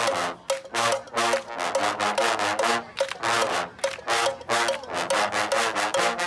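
Marching band brass and drums playing short, detached chords in a steady rhythm, about three hits a second.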